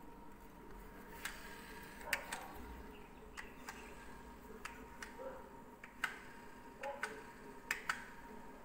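Faint, irregular light clicks and taps, about ten spread unevenly over several seconds, over a faint steady high tone.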